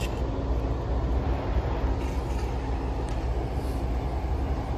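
Steady low outdoor rumble with a faint constant hum, unchanging throughout.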